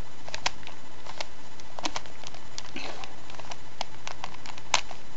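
Plastic Rubik's Cube layers being turned by hand, a run of sharp, irregular clicks and clacks, over a steady background hiss.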